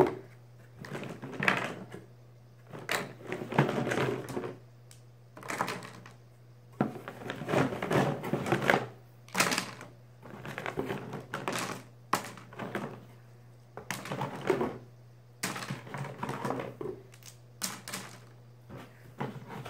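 Plastic toy train track pieces clattering and knocking together as they are taken out of a cardboard box and set down on a table, in irregular bursts of clicks and thunks. A steady low hum runs underneath.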